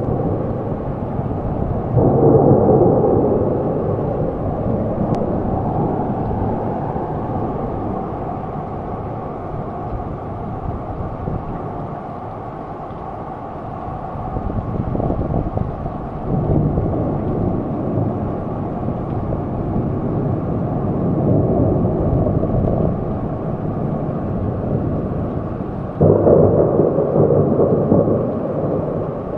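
Heavy rainstorm: a steady low rush of rain and wind that swells suddenly louder about two seconds in, again around the middle, and near the end.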